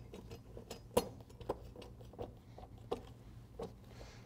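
Light, scattered clicks and knocks of steel belt-fastener bottom plates and bolts as a rubber conveyor belt end is pushed onto them, over a faint low hum of room tone.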